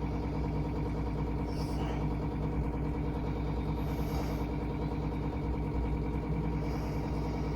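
A steady low droning hum made of several held tones that does not change, with a faint short hiss about every two to three seconds.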